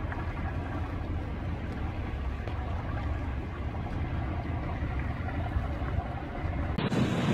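Motorboat engine droning steadily as a tow boat pulls a burned-out boat hull through the water. Near the end it cuts abruptly to surf and wind noise.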